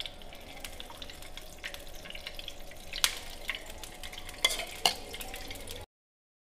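Batter sizzling in the hot, ghee-greased cups of an appe pan as it is spooned in, with a few sharp clicks of the spoon against the pan, the loudest about three seconds in. The sound cuts off suddenly near the end.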